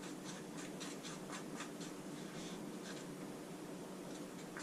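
Slime mixture being stirred in a container: quiet, repeated scraping strokes, about three a second.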